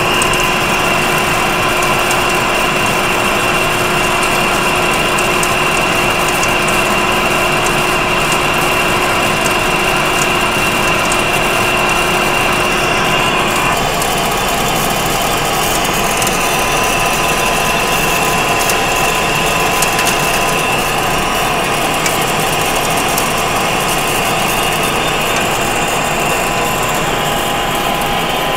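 Manual metal lathe taking a heavy roughing cut in a 1045 steel bar under flood coolant at an increased feed rate: a steady machine whine over the noise of the cut, with chips breaking off the tool. About halfway through, the pitch of the whine changes.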